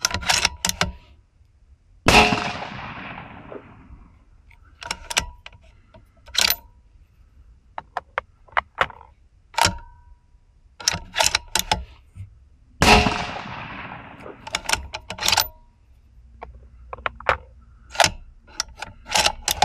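Two rifle shots from a 6BR (6mm BR Norma) rifle, about eleven seconds apart, each with a long echoing tail. Between and after them come clicks and clacks from the rifle's action being worked.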